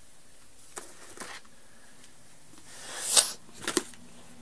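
Handling noise of clothing being rummaged through: soft fabric rustling with a few light knocks, and a louder rustle about three seconds in.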